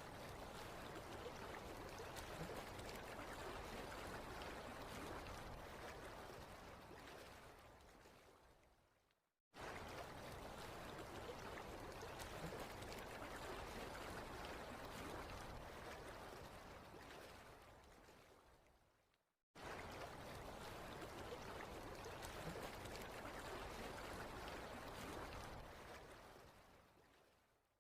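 Waterfall sound effect: steady rushing water. The roughly ten-second recording plays three times, each time fading out and then starting again abruptly.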